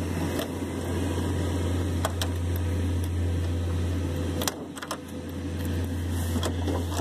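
A key turning in an old door lock, giving a few short clicks about two seconds in and again around four and a half seconds, over a steady low engine hum.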